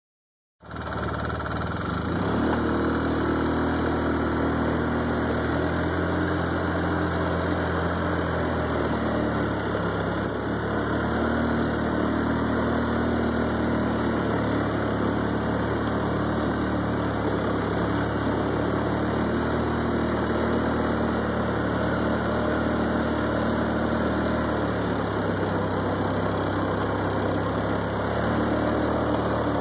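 Polaris ATV engine running while riding along a dirt trail, its pitch rising and falling as the throttle and engine speed change.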